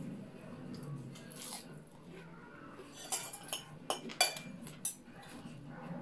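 Mouth sounds of chewing, then several sharp clinks of a metal fork and spoon against a porcelain plate between about three and five seconds in, one ringing briefly.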